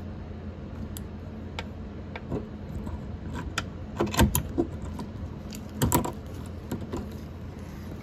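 Small metallic clicks and clinks of a fishing-type pickup tool working against a loosened window bolt inside a Tesla Model Y door, scattered and irregular, loudest in two bunches about four and six seconds in.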